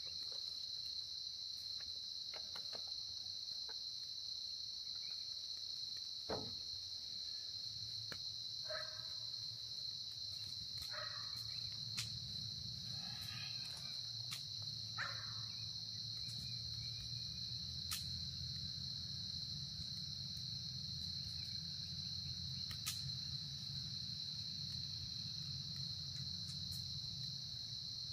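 Crickets singing in a steady, continuous high-pitched chorus, with a few sharp crackles from a wood campfire scattered through it.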